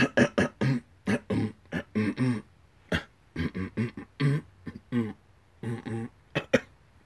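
A man's voice making a string of short wordless vocal sounds, quick syllable-like bursts with no clear words, and one sharp click about three seconds in.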